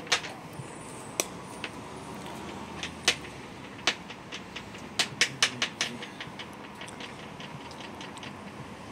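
Irregular sharp clicks over a steady outdoor background hiss, with a quick run of them about five seconds in.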